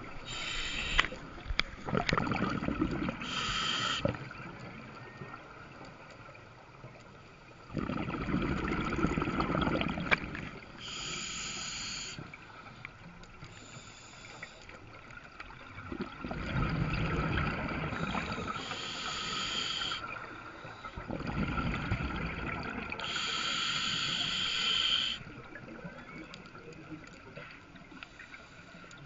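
Scuba diver breathing through a regulator underwater: a hiss on each inhale and a burst of bubbling exhaust on each exhale, repeating slowly several times.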